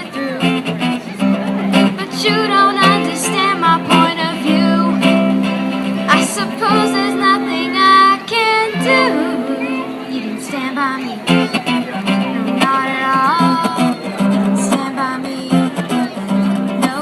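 Live song performance: a guitar strummed steadily under a singer's voice, with sung phrases coming and going.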